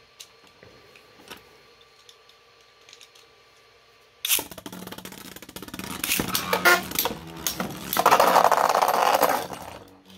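3D-printed Beyblade spinning tops launched with a sudden rip a little over four seconds in, then spinning and clashing in the stadium with rapid clattering hits, loudest just before the round ends.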